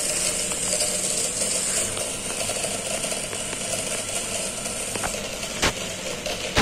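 Small DC gear motors of a four-wheeled hobby robot car running steadily as it drives, a mechanical whir with a gear-train rattle. A couple of sharp clicks come near the end.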